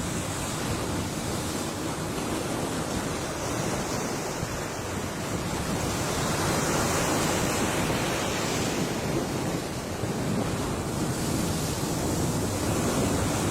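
Ocean surf washing on the shore, a continuous rushing that swells louder as a wave breaks about halfway through and again near the end.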